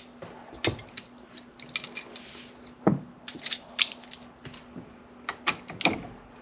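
Hand ratchet clicking in short, irregular runs of strokes as it backs out a steering-wheel bolt that has already been broken loose.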